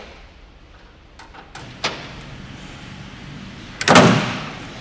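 A car door being handled: a few light clicks and a knock, then a loud slam near the end as the door shuts.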